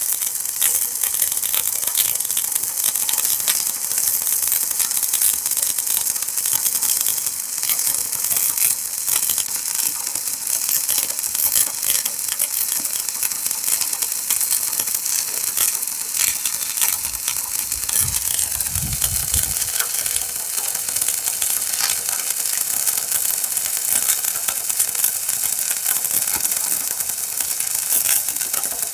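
Shielded metal arc (stick) welding with an E6013 electrode, burning a bead along the joint between steel rebar and a steel plate: a steady crackling sizzle full of tiny pops. A brief low rumble comes in about two-thirds of the way through.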